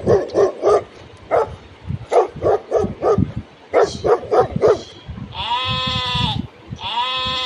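A dog barking in quick runs of three or four barks, then two long, steady sheep bleats from about five seconds in.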